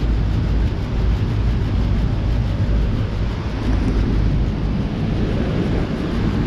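Outdoor heat pump unit, a 2.5-ton Ruud Achiever RP14, running in cooling mode: the condenser fan and scroll compressor running steadily with a constant low hum.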